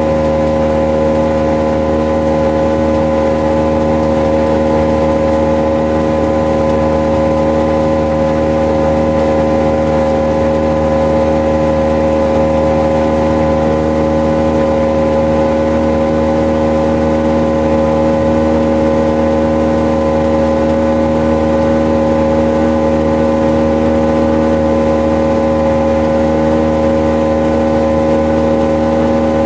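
Boat's outboard motor running at a steady speed, its pitch holding constant throughout.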